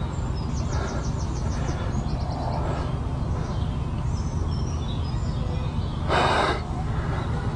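Steady outdoor background rumble with faint, fast high chirps or ticks in the first few seconds, and a short noisy burst about six seconds in.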